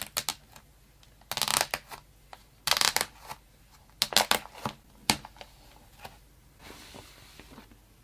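Cardboard box and plastic packaging of a tablet being handled and opened: several short bursts of rustling and scraping with sharp clicks, then a softer rustle near the end.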